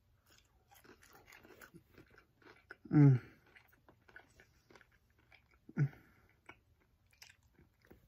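A person biting into and chewing Birds Eye Buffalo-style cauliflower wings, many small mouth clicks of the chewing. Two short sounds of his voice break in, a louder one falling in pitch about three seconds in and a shorter one near six seconds.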